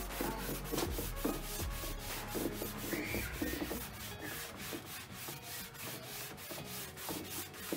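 A sponge scrubbing the mouldy back panel of a wardrobe in quick, repeated back-and-forth strokes, wiping vinegar on to lift the mould.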